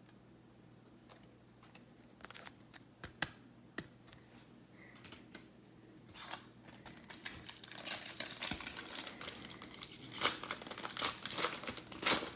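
Trading card pack wrapper being handled and torn open: a few light clicks and rustles at first, then dense crinkling and tearing from about six seconds in.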